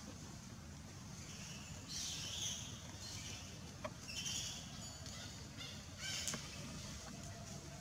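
Outdoor background: a steady low rumble, with three short bursts of high bird twittering and a couple of faint clicks.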